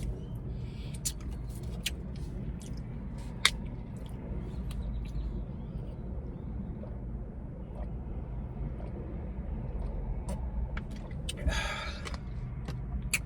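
Steady low rumble of a car interior, with a few small sharp clicks while a drink is handled and sipped, and a short breathy exhale near the end.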